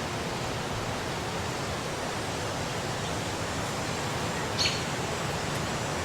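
Steady, even background hiss of outdoor ambience, with one short high chirp about four and a half seconds in.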